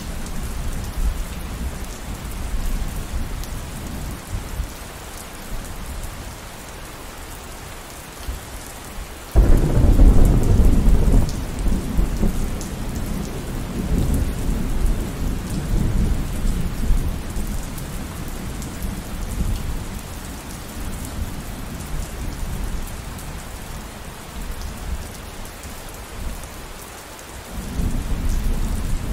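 Steady rain with rolling thunder. A sudden loud thunderclap about nine seconds in rumbles on and slowly dies away. Another low rumble of thunder builds near the end.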